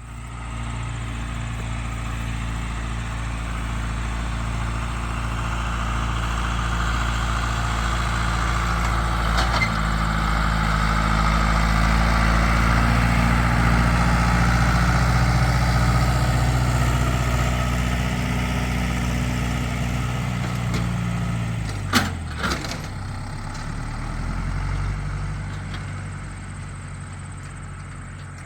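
Farm tractor engine running as it pulls a load of hay past, growing louder to a peak about halfway through and then fading away. A sharp clank comes about three-quarters of the way in, with the engine note dipping briefly.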